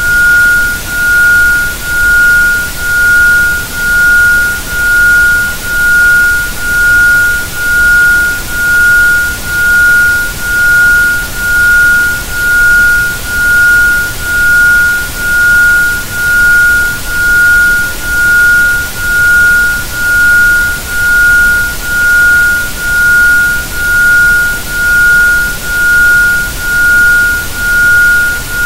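Isochronic brainwave-entrainment tone: a pure 1430.71 Hz sine tone pulsing on and off at 1.05 Hz, about once a second, over a steady hiss of background noise.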